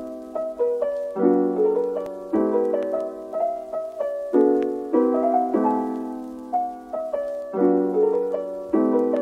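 Background music of soft keyboard chords, each struck and left to fade, changing about once a second in a repeating pattern.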